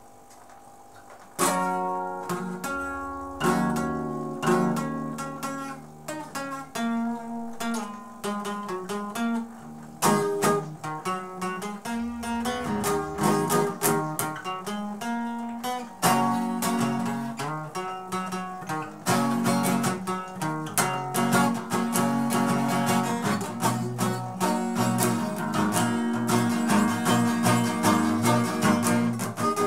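Solo acoustic guitar playing an instrumental intro of strummed and picked chords, starting suddenly about a second and a half in.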